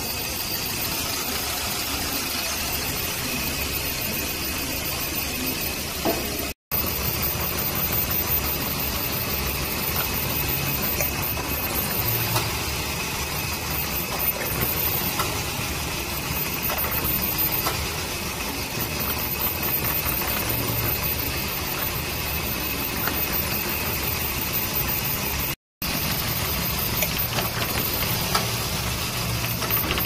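Toyota engine idling roughly with a misfire that shakes it on its mounts, with a steady high-pitched whine over the running sound. The misfire comes from a cylinder 2 ignition coil with no power. The sound drops out twice for a moment.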